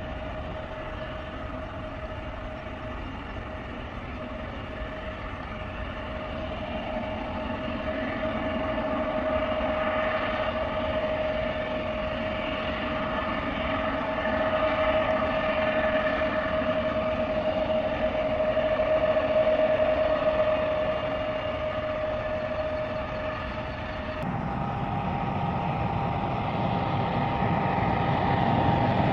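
Twin-engine jet airliner at takeoff thrust, heard at a distance during its takeoff roll and climb-out: a steady engine whine over a rumble, growing louder and then easing off. About 24 seconds in it changes to the drone of a DHC-8 Dash 8 turboprop on landing approach, getting louder as it nears.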